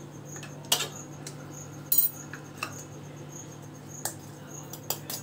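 Sharp clinks and knocks of a spoon and stainless-steel kitchen containers being handled, about six separate strikes, the loudest about two seconds in, over a steady low hum.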